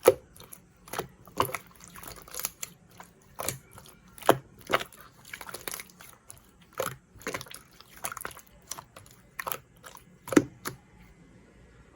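Slime being pressed and squished by hand, giving irregular wet pops and clicks, about one or two a second.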